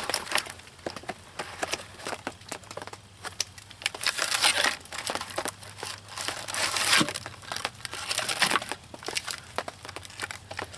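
Plastic MRE pouch and the packets inside it crinkling and rustling as the meal kit is opened and rummaged through, with irregular sharp crackles.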